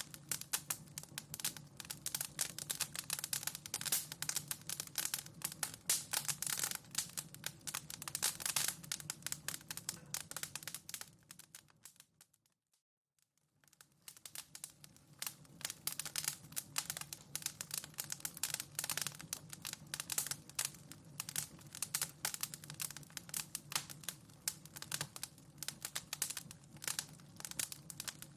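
Wood fire crackling in a fireplace: a dense, continuous stream of small pops and snaps. About twelve seconds in it fades out to near silence for a second or two, then fades back in.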